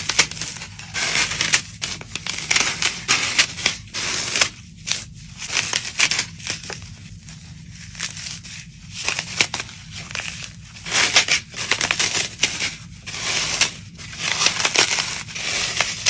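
Dry brown floral foam with a brittle white crust being crushed and crumbled by hand: a run of irregular crisp crunches and crackles in uneven clusters as chunks break off and grind into crumbs.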